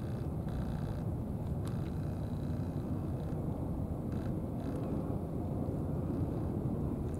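Steady low outdoor rumble of background noise, such as distant traffic or wind, holding an even level throughout, with a couple of faint clicks about one and a half seconds in.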